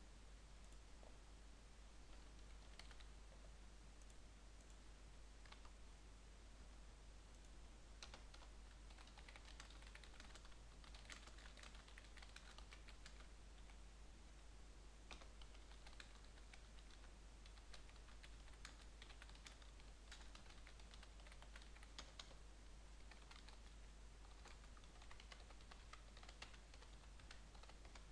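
Faint typing on a computer keyboard: irregular key clicks coming in quick runs with short pauses, over a steady low hum.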